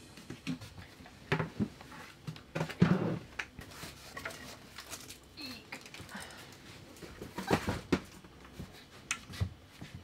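Scattered light knocks, clunks and rustles of cardboard boxes and kitchenware being handled and set down in a small room, with a few short squeaky vocal sounds between them.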